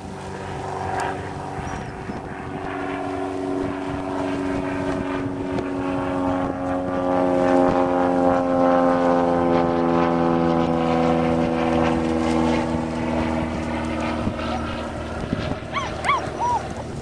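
Engine of a passing motor vehicle, a steady hum that swells to its loudest about halfway and then slowly fades. Near the end a puppy gives a couple of short, high yelps.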